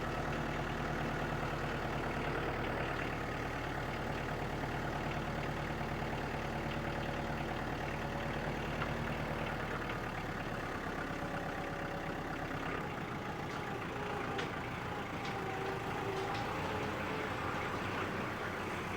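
An engine running steadily at idle, its low, even hum changing about ten seconds in.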